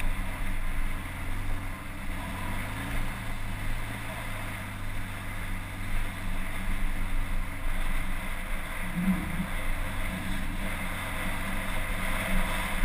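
Off-road vehicle's engine running steadily in a low gear, with some wind noise on the microphone.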